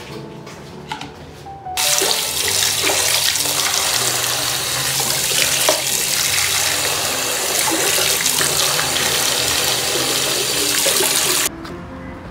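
Tap water running hard from a washbasin's lever faucet into a plastic bowl, starting about two seconds in and cutting off suddenly near the end.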